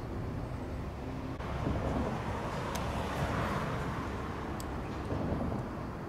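Vehicle noise heard from afar: a rumbling hiss that swells from about a second and a half in and eases off near the end.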